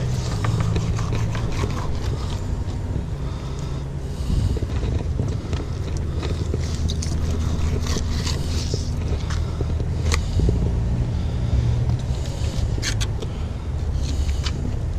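Fillet knife scraping along a plastic cutting board as it skins fish fillets, with a few sharper scrapes in the second half, over a steady low rumble.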